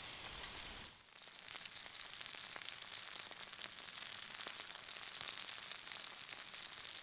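Diced potato, pork belly and onion frying in butter in a skillet: a steady sizzle with fine crackles and pops.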